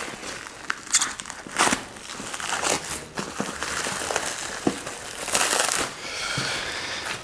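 Plastic packaging being pulled off a long parcel and crinkling and rustling, with irregular louder crackles, the loudest near the end.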